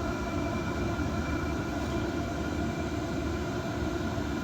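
Diesel air heater running steadily: a constant low rumble from its burner and combustion fan, with faint steady whining tones above it.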